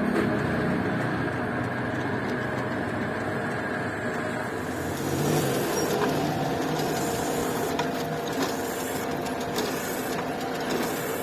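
Drill press running steadily while a cutter bites into the aluminium boss of an engine casing, machining out a stripped thread hole to take a thread insert. The sound grows brighter about halfway through as the cut takes hold.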